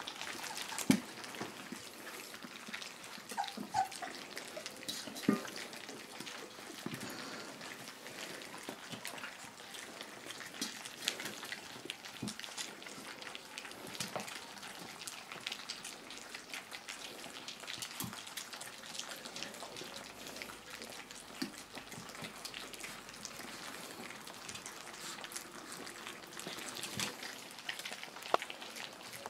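A litter of puppies eating soft, wet puppy food from shared steel pans: an irregular patter of wet lapping, smacking and small clicks, with a few louder knocks.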